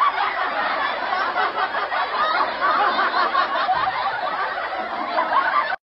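Many people laughing together, a steady wash of crowd laughter that cuts off suddenly near the end.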